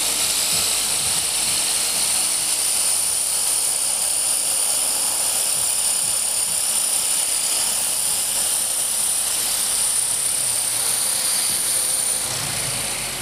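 Esky Honey Bee CP2 RC helicopter, its electric motor and rotor running steadily with a high whine. The sound eases a little about a second before the end.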